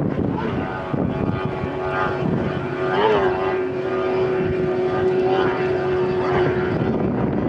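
Yamaha outboard motor on a racing powerboat running at full speed, a steady high-pitched engine note with a brief wobble in pitch about three seconds in.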